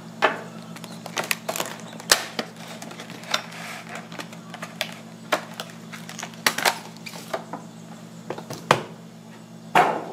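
Plastic wrapping on a hard plastic whetstone case being cut and peeled open: irregular crinkles, clicks and taps of plastic handled in the hands, over a low steady hum.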